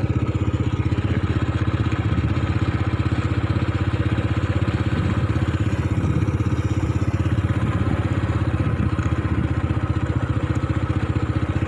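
Motorcycle engine running at a steady speed while being ridden, heard from the saddle.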